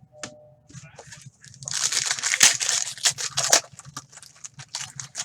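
Plastic-foil card pack wrapper being torn open and crumpled, a dense crinkling rustle for about two seconds in the middle, with small clicks and rustles of card handling before and after.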